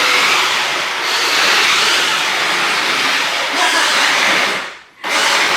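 Electric drive motors and gears of a 1/8-scale remote-control Jeep Wrangler, one motor per wheel, running loudly as the toy drives. The steady hiss cuts out briefly just before the end, then starts again.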